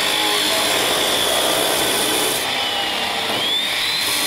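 Electric abrasive cut-off saw running with a high motor whine over a steady grinding noise as its disc is brought down onto steel plate. The whine sags in pitch and climbs quickly back about three and a half seconds in.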